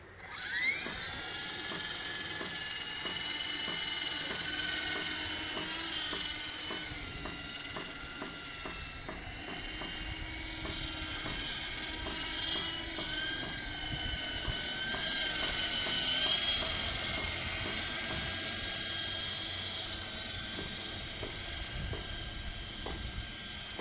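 Radio-controlled model helicopter's motor and rotor spooling up with a rising whine in the first second, then a steady high-pitched whine that wavers in pitch as it lifts off and flies.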